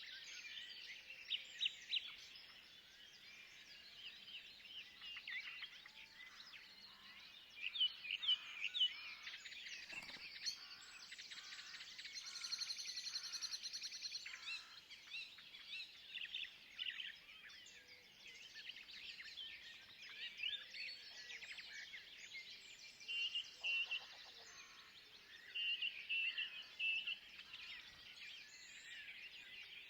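Several forest birds chirping and calling in quick short notes over a faint steady rustle, with a rapid buzzing trill for about two seconds midway and a single sharp click about a third of the way in.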